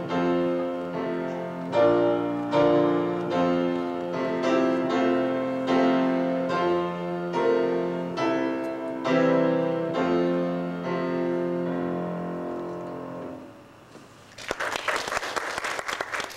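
Solo piano piece, chords and melody notes ringing on; the playing ends about thirteen and a half seconds in, and after a short pause the audience breaks into applause.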